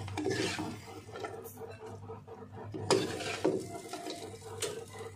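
Metal spoon scraping fried jengkol in sambal out of a wok into a ceramic bowl, with a few sharp knocks of the spoon against the pan and bowl from about three seconds in, over a steady low hum.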